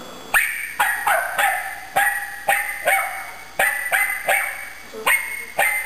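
Small dog barking over and over at a pair of hand drums, a quick run of sharp barks about two a second.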